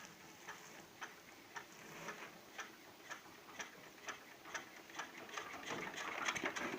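Steady mechanical ticking, about two sharp clicks a second.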